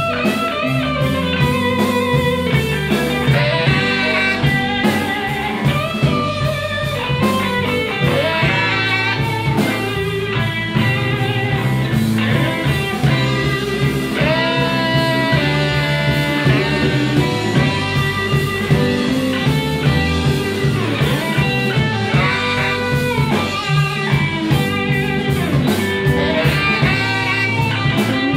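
Live blues band playing an instrumental passage: electric guitar lead with bending notes over bass and drums, with saxophone in the band.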